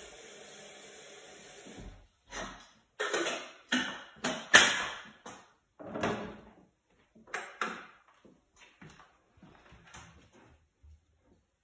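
Kitchen tap running into a sink, shut off about two seconds in. Then a run of knocks and clatters as cups, saucers and other kitchen things are handled on the counter, the loudest about four and a half seconds in, thinning to faint taps near the end.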